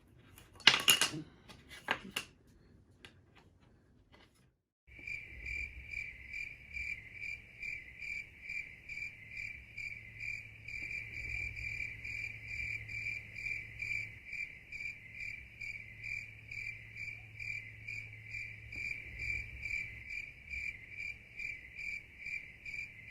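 A few sharp clicks and snaps in the first two seconds. Then, after a short silence, cricket chirping starts abruptly about five seconds in and keeps on: a steady high trill at one pitch, pulsing about four times a second.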